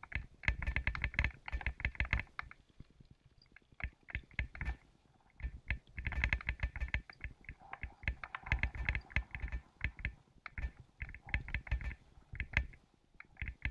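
A bicycle rolling over a gravel dirt track, making bursts of rapid clicking and rattling with short quieter gaps between them.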